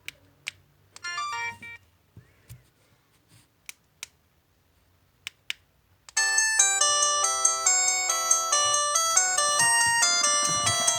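LG MG160a mobile phone alarm tones: a brief melodic snippet and a few sharp clicks, then about six seconds in a new electronic alarm melody of several notes at once starts and plays on steadily.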